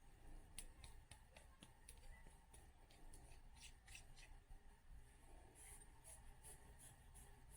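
Near silence with faint light clicks and rubbing: steel reloading die parts being handled and fitted together.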